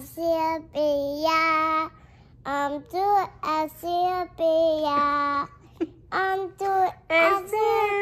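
A young girl singing a song without accompaniment, in short held phrases with brief pauses between them.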